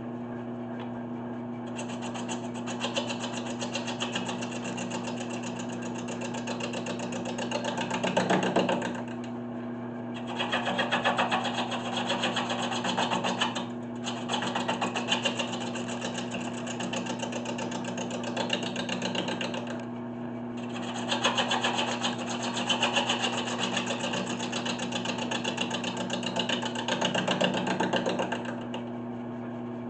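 A 1981 Delta 12-inch wood lathe's motor hums steadily while a turning tool cuts the face of a spinning spalted maple blank. The cuts come in long stretches of scraping noise with four short breaks where only the motor hum is left.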